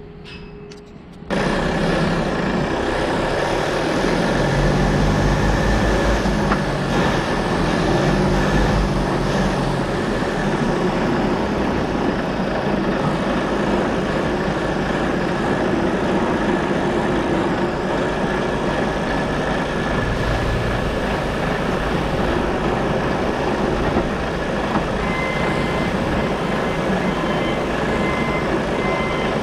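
Heavy truck tractor's diesel engine running, heard close from behind the cab over the fifth wheel. The sound jumps up sharply about a second in, then holds steady, with a deeper, pulsing rumble between about 4 and 10 seconds.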